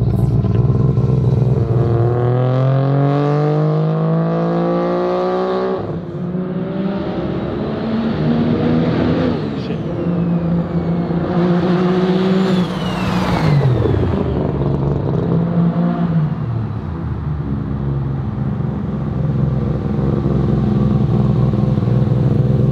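Turbocharged three-rotor rotary engine with a big street port, in a Mazda RX-7, untuned and on low boost. It pulls hard with its pitch climbing for a few seconds, then drops off abruptly about six seconds in. It then runs at steady revs, winds down with a falling pitch past the middle, and carries on at an even note.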